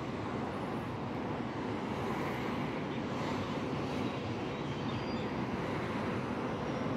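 Steady rush of sandstorm wind over the microphone, an even noise that holds without break.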